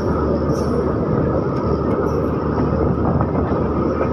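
Steady running noise of a moving passenger express train, heard from on board: an even rumble of wheels on rail with rushing air.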